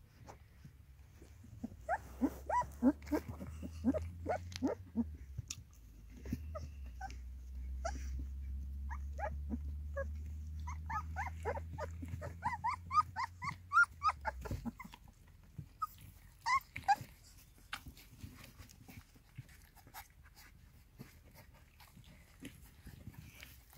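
Newborn puppies nursing, making many short high squeaks and little grunts, in clusters a couple of seconds in and again from about ten to fourteen seconds in. A low steady rumble lies under them and cuts off abruptly about fourteen seconds in, leaving faint scattered clicks and smacks.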